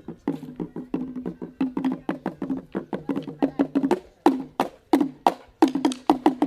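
Traditional T'boli instrumental music: a quick run of struck or plucked notes with sharp attacks, each ringing briefly on a few low pitches, in a fast repeating pattern.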